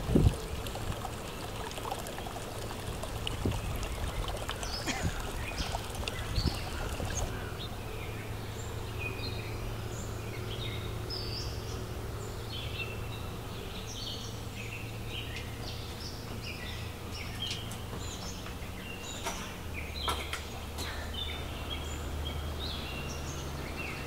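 Outdoor ambience: many small birds chirping and calling in short notes, over a steady low rumble, with running water early on. A single thump comes right at the start.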